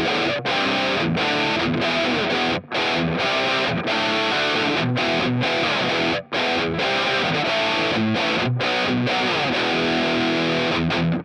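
Electric guitar with a distorted tone, played through a NUX MG-30 multi-effects processor: a melodic lead line of held, changing notes with a few brief breaks.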